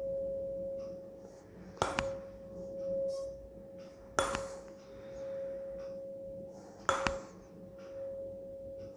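A 512 Hz tuning fork struck three times with a rubber-headed hammer. Each tap is a sharp knock followed by a steady, pure ringing tone that slowly fades. It is held over the open end of a resonance-column tube with a 45 cm air column, while the second resonating length is being sought.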